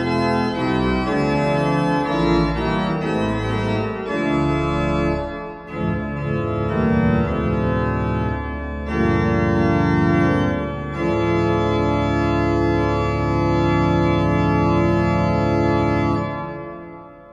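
Vierdag pipe organ playing the closing chords of an improvisation. It ends on a long held chord that is released about sixteen seconds in, and the sound dies away in the church's reverberation.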